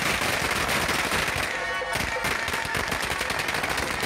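Strings of firecrackers going off in a rapid, unbroken crackle.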